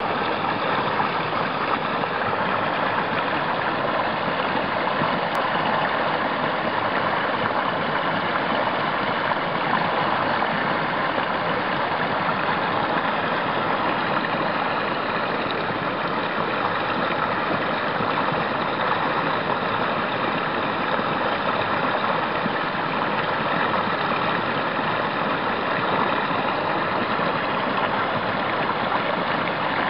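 Steady rushing of a flowing stream, an even hiss of moving water that does not change.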